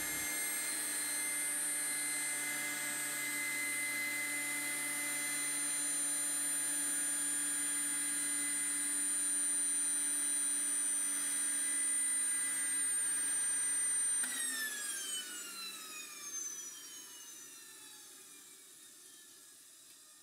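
Model jet turbine's rotor whining steadily in its cool-down cycle. About 14 seconds in, it winds down with a falling whine that fades almost to quiet.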